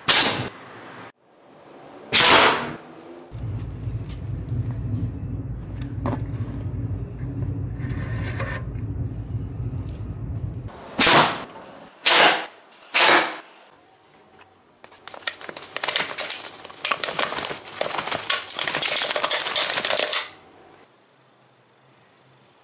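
Blowgun shots from a homemade 15 mm steel-and-PVC blowgun: sharp puffs, two at the start and three close together near the middle, with darts striking a cardboard target. Between the shots there is a steady low hum, and near the end a few seconds of dense rattling clicks.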